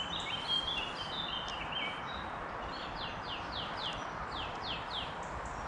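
Songbirds singing: a run of short whistled notes at shifting pitch, then about eight quick downward-sweeping notes in a row, over a steady background hiss.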